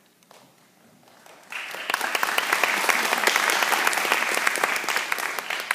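Audience applauding: many hands clapping together, starting about one and a half seconds in and dying away at the end.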